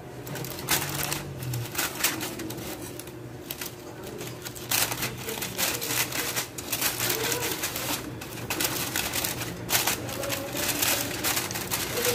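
Aluminium foil covering a pan crinkling and rustling in irregular bursts as it is handled.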